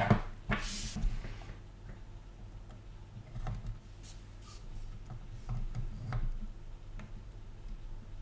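Faint clicks and small taps of new radial electrolytic capacitors being handled and pushed into their through-holes on a motherboard, with a short rustle just under a second in, over a steady low hum.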